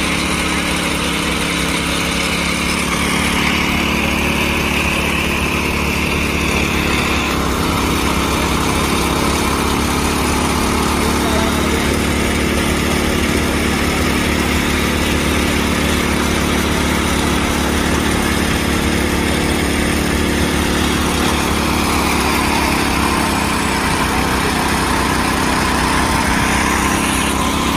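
Small engines of railway motor trolleys running steadily on the rails.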